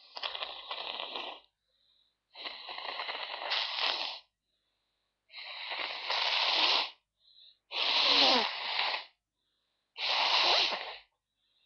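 A person taking five heavy, breathy breaths in a row, about every two and a half seconds and getting louder, the later ones with a slight catch of voice, as they try to bring on a sneeze.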